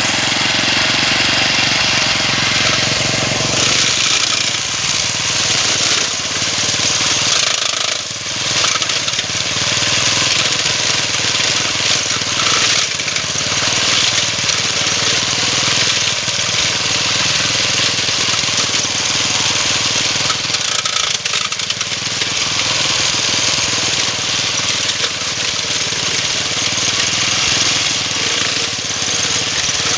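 Homemade push-type grass cutter's small engine running steadily and loud as its blade cuts through thick grass, rattan and woody stems, with a brief dip about eight seconds in.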